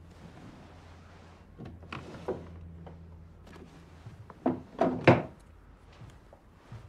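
A low steady hum, with a few light knocks around two seconds in, then a quick cluster of loud knocks and bumps, like a drawer or door being handled, about four and a half to five seconds in.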